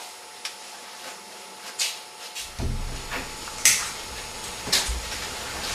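Interior door being opened: several sharp clicks and knocks from the handle and latch over a steady background hiss.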